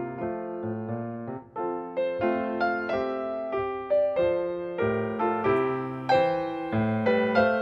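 Background piano music: a gentle piece of struck notes and chords over a low bass line, with a brief pause about a second and a half in.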